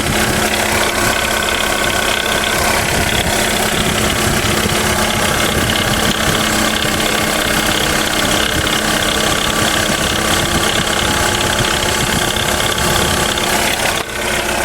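Jeep Renegade 1.8 flex engine idling steadily, with a noise from the water pump that points to a failing water pump, typically its bearing. The sound dips briefly about a second before the end.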